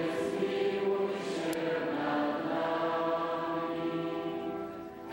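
A huge crowd of pilgrims singing a slow hymn in unison, a sung plea for God's mercy, holding long notes.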